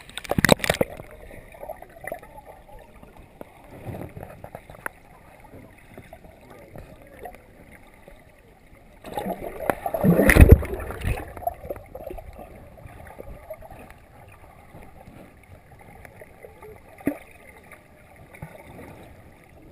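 Water splashing and sloshing in irregular bursts, loudest just at the start and in a burst of splashing about ten seconds in, with quieter lapping between.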